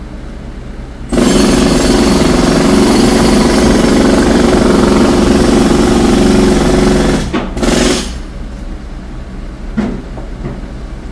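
Jackhammer starting suddenly about a second in and hammering loudly and steadily for about six seconds, then stopping, with one short second burst just after.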